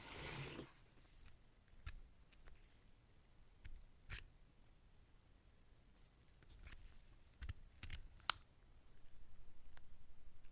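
Packaging and phone being handled: a brief rustle, then scattered light clicks and taps, one sharper click about eight seconds in. A low, evenly pulsing sound starts near the end.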